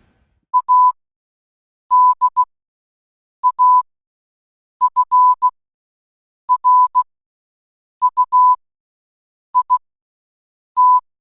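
Electronic Morse code beeps at one steady pitch, spelling A-D-A-F-R-U-I-T (.- -.. .- ..-. .-. ..- .. -). They come as eight groups of short and long beeps, with a pause between letters and silence in between.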